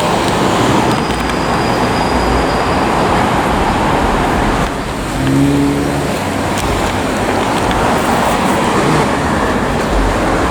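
Steady traffic noise from a busy city street, with cars passing. A short low tone sounds about halfway through.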